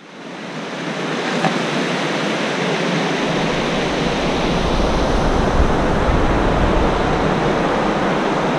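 Water rushing over a low weir, a steady loud rush that fades in over the first second, with a deeper rumble joining about three seconds in.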